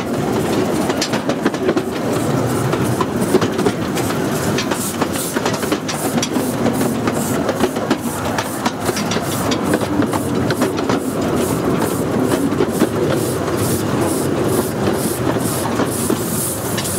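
Miniature 15-inch gauge steam train running, heard from the carriage right behind the locomotive: wheels clattering on the track. From about four seconds in there is a regular beat of about two or three a second.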